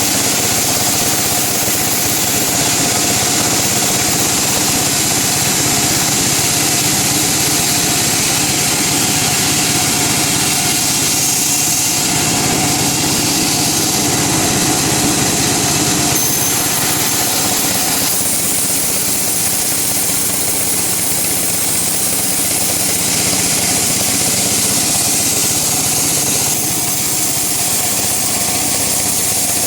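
Woodworking machinery running steadily, a continuous mechanical drone with a steady hum, as used in milling teak into flooring boards.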